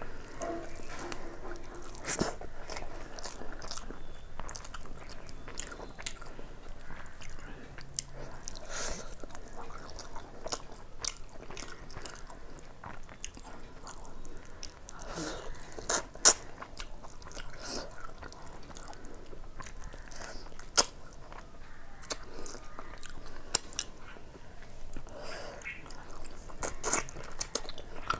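Close-up eating sounds of a person chewing a handful of fried rice and chicken curry eaten by hand: wet chewing with irregular crisp mouth clicks and crunches, two louder clicks near the middle.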